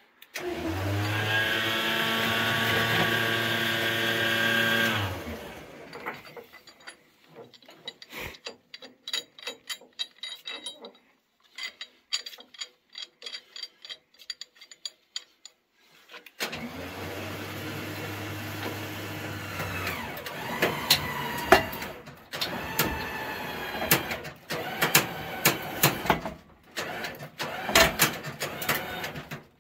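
A recovery truck's boom winch motor runs for about five seconds, stops through roughly ten seconds of clinking chain and hook, then runs again to the end while the Jeep Wrangler's front end is lifted, with sharp metal clanks over it.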